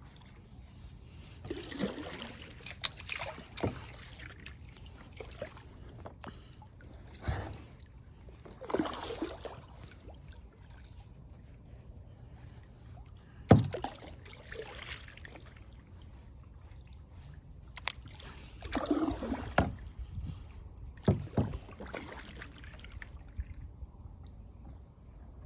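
Kayak paddle strokes: water swishing and dripping off the blade every few seconds, with a few sharp knocks, the loudest about halfway through.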